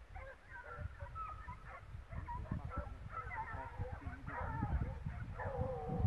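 A pack of hunting hounds giving tongue in full cry, many voices baying and yelping over one another, building louder toward the end, with a low rumble underneath.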